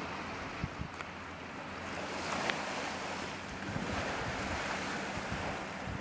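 Baltic Sea waves washing on the shore, swelling into a louder wash around the middle, with wind buffeting the microphone in a few low thumps near the start.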